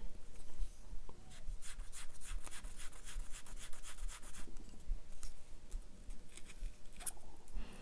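Thin quilling paper strip being drawn across a needle tool and between fingers to soften it into a curve: soft, irregular scratchy rubbing.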